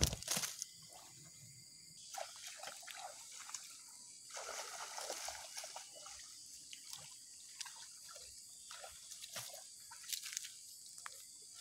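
Irregular splashing and sloshing of shallow muddy water as a person wades through it, with a sharp knock right at the start.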